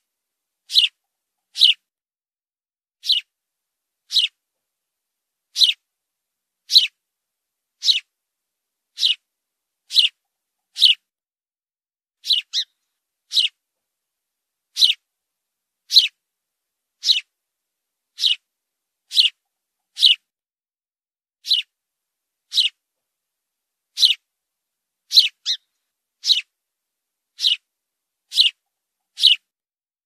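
House sparrow chirping: short, clipped cheeps that drop in pitch, about one a second and sometimes two close together, with dead silence between them.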